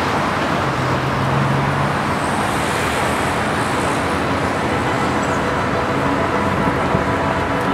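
Steady urban road traffic noise, a continuous wash of passing cars and buses, with a low engine hum in the first couple of seconds.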